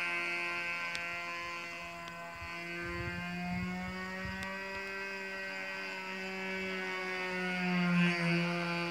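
Hot Stick RC model airplane's engine droning steadily in flight, its pitch rising and falling slightly as the plane circles, growing louder near the end as it comes closer. Brief wind rumble on the microphone about three seconds in.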